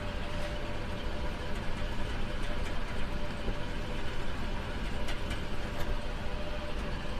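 Steady low background rumble with a faint hum, with a few light scratches of a marker writing on a whiteboard.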